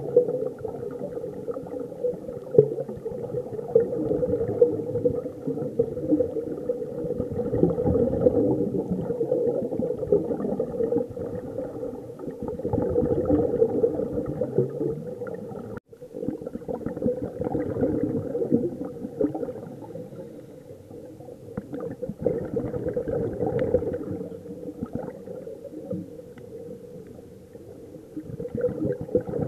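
Muffled underwater gurgling and bubbling of scuba regulator exhaust bubbles, heard through an underwater camera. It swells and fades every few seconds, with a brief drop-out about halfway through.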